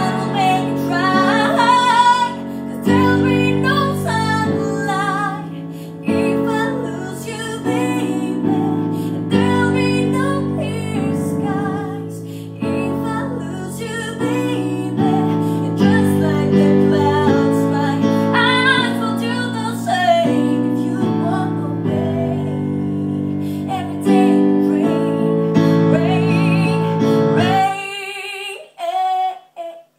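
A woman singing over sustained chords played on an electronic keyboard. Near the end the keyboard stops briefly and her voice carries on alone.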